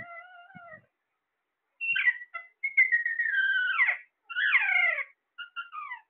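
Caged Alexandrine parakeets calling: a run of loud whistled calls that slide down in pitch, from about two seconds in to five, with a few shorter calls near the end.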